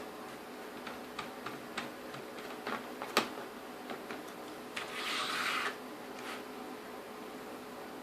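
Small clicks and taps of screws and plastic parts being handled and fitted during bench reassembly of a climate control unit, with one sharper click about three seconds in and a short rasping hiss a couple of seconds later, over a steady low hum.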